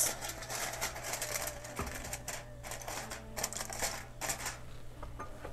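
Irregular light clicks and clatter of cookware as a lid is fitted onto a large steaming pot.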